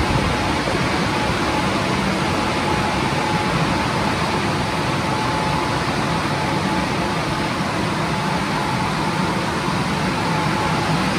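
Istobal M'NEX 22 rollover car wash gantry running over a car: a steady, loud rush of machine noise with a faint steady whine.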